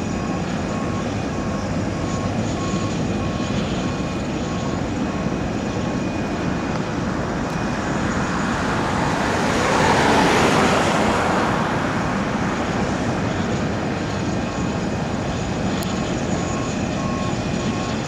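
Aircraft pushback tug's reversing alarm beeping at an even pace, about one and a half beeps a second, over a steady rumble of engines and airport machinery. A broad whooshing swell rises and falls midway, loudest about ten seconds in.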